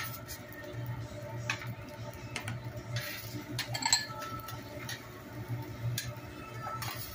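A metal spatula scrapes and taps on a steel teppanyaki griddle as fried rice is scooped into bowls, giving scattered clinks over a steady low hum. The loudest clink comes a little before four seconds in.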